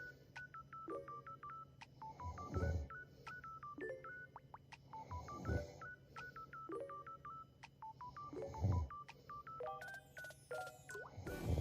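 A sleeping young woman snoring softly, four slow breaths about three seconds apart. Behind her, a faint electronic tune of short beeping notes plays on.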